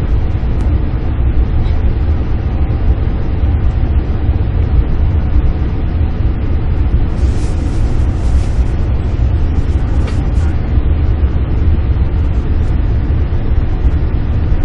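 Cabin running noise of a Max double-deck Shinkansen: a loud, steady low rumble with track and air noise. A brief rush of hiss about halfway through comes as an oncoming Max train passes on the next track.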